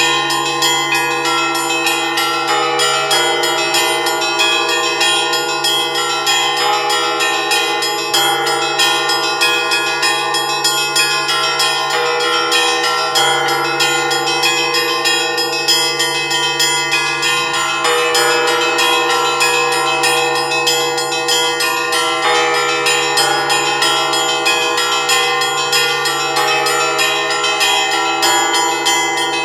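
Several church bells of an Orthodox monastery bell tower ringing together in a continuous, dense peal. Small bells are struck rapidly over the steady tone of a larger, low bell.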